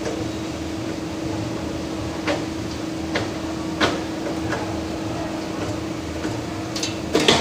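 Factory machinery running with a steady hum and a pulsing low rumble, broken by a few sharp metal knocks, the loudest near the end.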